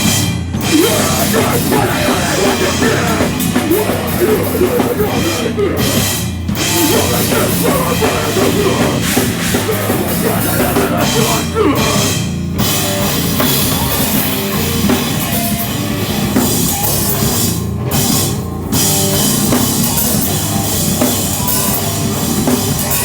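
Live heavy rock band playing loud, with distorted guitars and a pounding drum kit; the band stops dead for a moment several times, roughly every six seconds.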